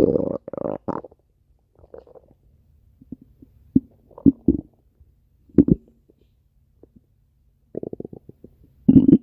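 Stomach growling: a long gurgling rumble in the first second, then scattered short gurgles and pops with gaps between them, and another run of quick gurgles near the end.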